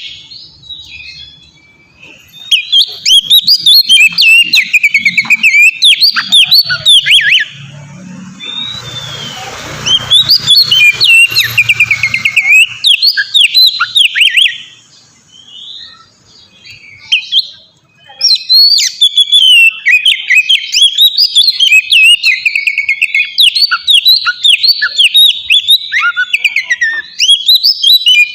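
Oriental magpie-robin (kacer) in full song: long runs of rapid, varied whistled phrases in three bouts, with short pauses between.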